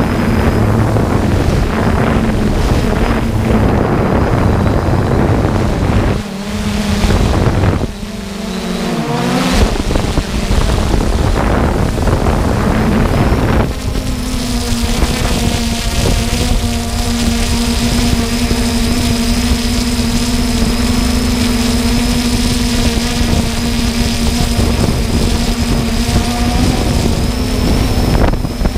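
Quadcopter drone's motors and propellers buzzing steadily, with wind buffeting the microphone. The pitch wavers and dips between about six and nine seconds in, then holds steady with a high whine above the drone's hum.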